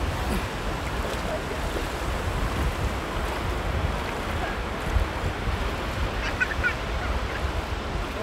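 Shallow surf washing up the sand at the water's edge, with wind buffeting the microphone. A few brief high chirps come about six and a half seconds in.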